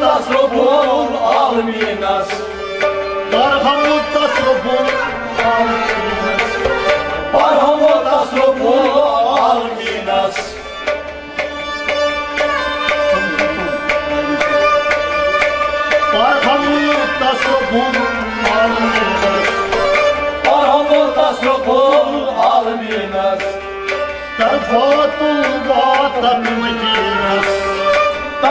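Kashmiri folk ensemble music: harmonium, rabab and sarangi carry a bending melody over steady hand strokes on a tumbaknari, the clay pot drum.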